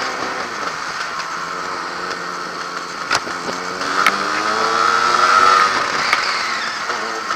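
Yamaha RXS100's two-stroke single-cylinder engine running while riding along, its pitch rising as it accelerates about halfway through and easing off after. Wind rushes over the microphone, and there are a couple of sharp knocks.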